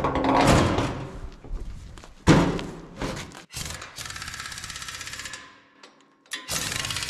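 Heavy steel of the corn picker clattering as it is shifted into place, with one loud clank a little over two seconds in. Then a pneumatic impact wrench hammers a bolt in two fast rattling bursts, about four seconds in and again near the end.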